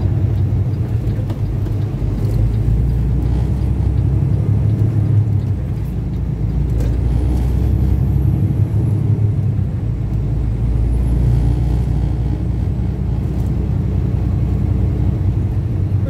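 Kenworth semi truck on the road: a steady low engine drone with road noise that holds even throughout.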